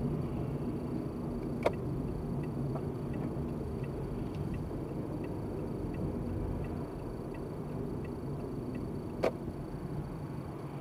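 Car cabin noise from a dashcam: a steady low rumble of engine and tyres on the road, with a light regular ticking, the turn-signal indicator, that stops near the end. Two sharp knocks, one near the start and one near the end, stand out above the rumble.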